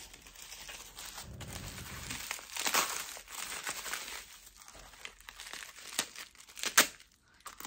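Crinkly packaging rustled and torn open while an item is unwrapped by hand, with a few sharp clicks, the loudest near the end.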